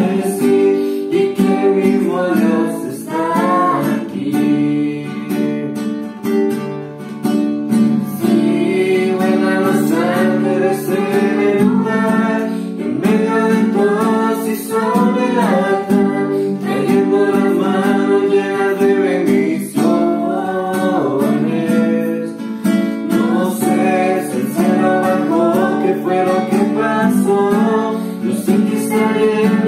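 A young woman singing a song with a classical guitar accompanying her.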